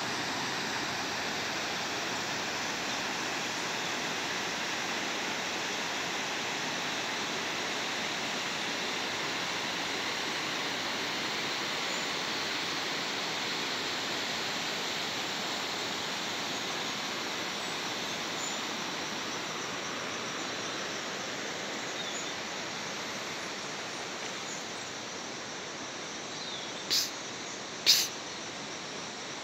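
Steady rushing of a muddy, swollen stream running high, which fades a little toward the end. Two sharp clicks about a second apart come near the end.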